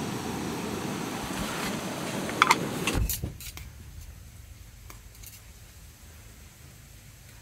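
Portable gas camp stove burner rushing steadily under a covered pot of boiling ramen water; about two and a half seconds in come sharp metal clinks as the pot lid comes off, and at about three seconds the rushing stops suddenly. After that, light clicks of chopsticks against the metal pot and bowl.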